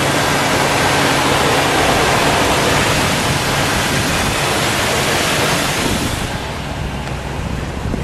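1961 Chrysler New Yorker's 413 cubic-inch V8 idling, heard close to the open engine bay under a loud, even rushing hiss. About six seconds in the hiss falls away and the lower idle note carries on.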